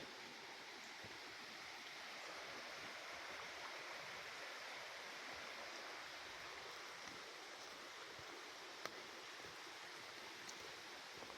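A stream running steadily, a faint, even rush of water, with an odd sharp click here and there.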